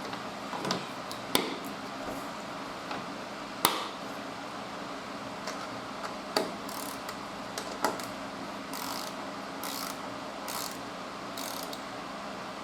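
Hand work on a car's air filter housing: scattered sharp clicks and knocks, the loudest a little under four seconds in, then several short raspy bursts in the second half.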